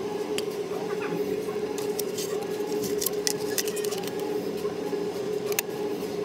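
A clear acrylic lash box is handled and opened, its plastic lid and case giving many light clicks and taps. Underneath runs a steady mechanical hum, with a faint whir that rises and falls about once a second.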